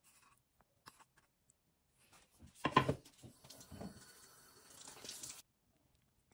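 Water splashing and running, with a sharp splash about two and a half seconds in and a second one a second later, then cutting off suddenly. A few faint clicks come before it.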